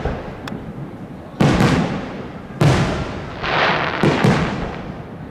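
Aerial firework shells bursting overhead: three sharp bangs, about a second and a half in, near the middle and about four seconds in, each trailing off in a rolling echo, with a brief hiss between the second and third.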